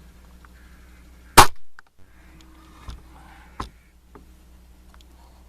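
A single shot from a BSA Lightning XL Tactical break-barrel air rifle about a second and a half in: one sharp crack with a short tail. Two much fainter clicks follow a second or two later.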